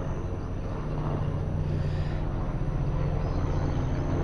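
A steady, low engine drone with a fine even flutter, slowly growing a little louder.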